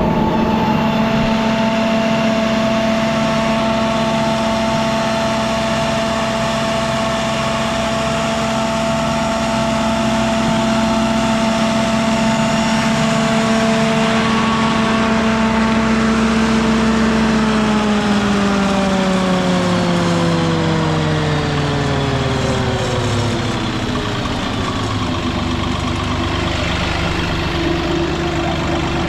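Carlton SP6016TRX stump grinder's engine running steadily at high speed, then throttled down a little past halfway, its pitch falling over several seconds to a lower, steady speed.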